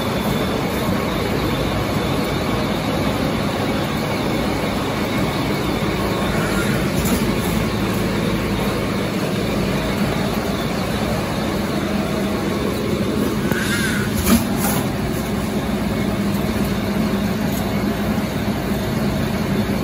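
Automatic glue-lamination napkin tissue production line running: a steady mechanical hum and clatter from its drives and conveyors. A single sharp click comes about fourteen seconds in.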